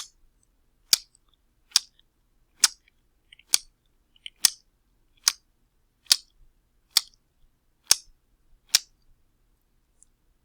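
Wet slaps repeated at an even pace, a sharp crisp smack a little more often than once a second, about eleven in all, stopping near the end.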